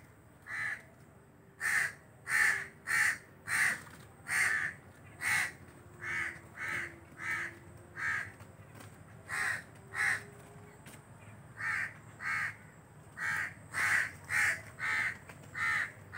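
Crows cawing over and over, about nineteen short, harsh caws coming in uneven runs of one or two a second, with short pauses between the runs.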